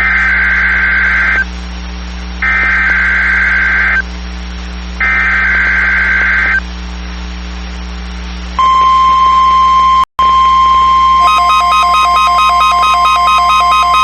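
NOAA Weather Radio test signal. It opens with three raspy digital SAME header bursts, each about a second and a half long with short pauses between them. About two seconds later a steady single-pitch warning alarm tone starts and holds, apart from a brief dropout. From about three seconds into the tone, a rapid pulsing electronic beeping joins it.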